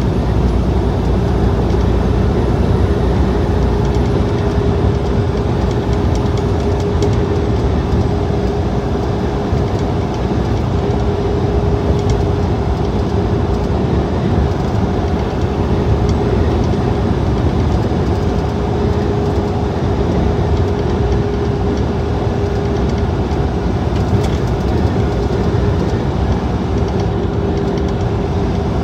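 Truck cab interior while cruising on the highway: steady engine and road rumble with a constant hum.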